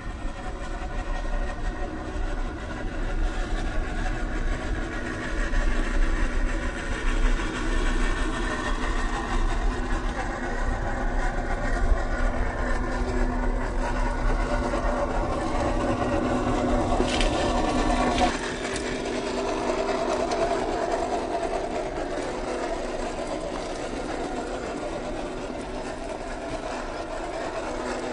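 Small electric motor and gearbox of a 1/12-scale MN128 RC Jeep Rubicon crawler whining steadily as the truck drives over dirt and rocks. The whine shifts a little in pitch and changes abruptly about eighteen seconds in.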